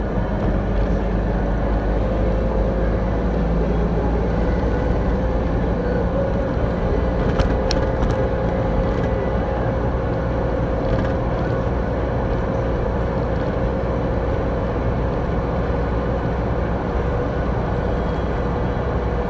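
Truck engine and tyre noise heard from inside the cab while driving at a steady pace, with a steady whine running through it.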